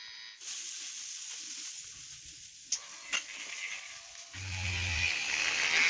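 Hiss with two sharp clicks, then the homemade drill's 555 DC motor starting up about four seconds in, running with a steady whine.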